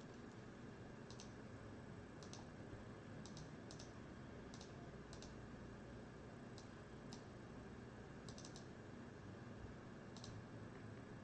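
Faint, scattered computer keyboard and mouse clicks, about a dozen at irregular intervals, some in quick pairs, over a steady low background hiss.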